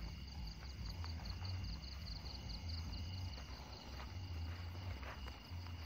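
Night insects trilling steadily at a high pitch, with irregular low rumbles and faint knocks from handling close to the microphone.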